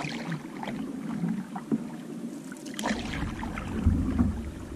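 Canoe being paddled: water splashing with each paddle stroke, about one a second, and lapping along the hull. Wind rumbles on the microphone from about halfway through.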